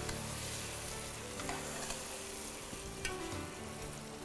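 Fish pieces with onion, garlic and tomato sizzling steadily in hot oil in a pot while being stirred with a spoon, with a few light clicks along the way.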